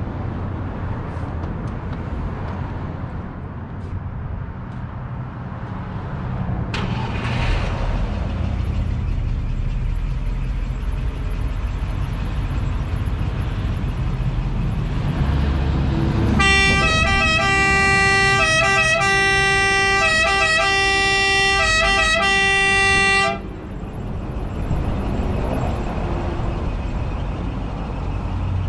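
The Land Rover Defender fire vehicle's emergency siren sounds a bit past halfway through, a loud pitched wail that breaks and dips at short regular intervals. It runs for about seven seconds and then cuts off suddenly.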